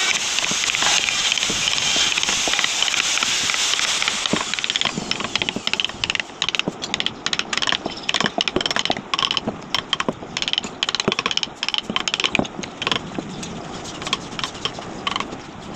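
Mallet tapping a carving chisel into wood in quick, irregular light taps, several a second, as a relief panel is hand-carved. For about the first four seconds a dense steady hiss covers them; the taps stand out clearly after that.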